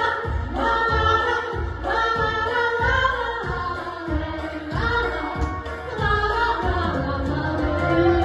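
Female vocal duet singing over a pop backing track with a steady beat.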